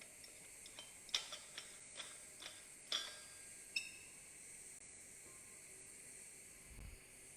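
TIG welding on a duplex stainless pipe root pass, keyholing: a faint steady arc hiss. A quick series of sharp, ringing clicks falls in the first four seconds, and a low thump comes near the end.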